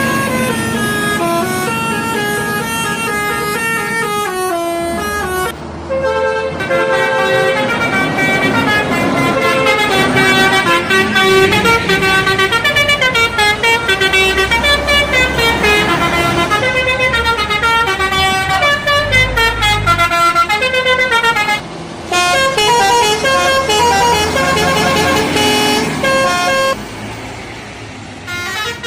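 Indonesian bus 'telolet' horns, sets of multi-tone air horns playing quick tunes of stepping notes, one bus's horn tune cutting abruptly to the next a few times.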